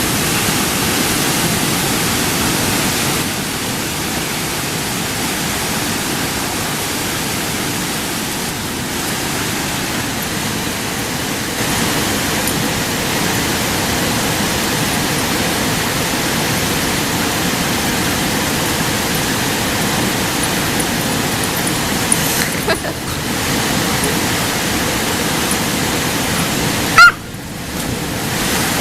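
Steady rushing of a waterfall, with a single sharp loud bump near the end.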